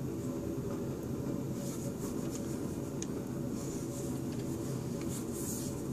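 Steady low background hum, with a few faint scratchy rustles as the wooden gunstock is handled and turned in the hands.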